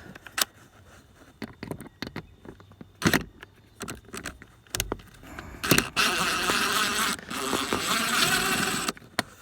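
Small cordless drill/driver whirring in two runs near the end, backing out a Torx screw from the seat trim. Scattered clicks and knocks come before it as the tool and bit are fitted to the screw.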